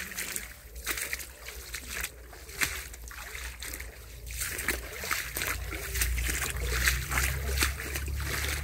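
Feet wading through shallow stream water, each step splashing and sloshing, about two steps a second.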